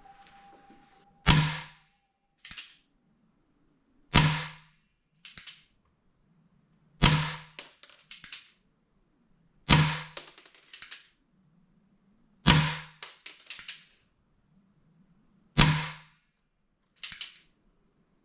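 Remington 1875 replica CO2 air revolver firing six shots, one about every three seconds, each a sharp pop followed about a second later by a smaller click.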